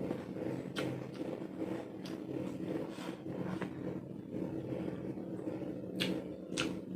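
Eating sounds of a mukbang: chewing with a steady low rumble and a few sharp mouth clicks or smacks, about a second in and twice near the end.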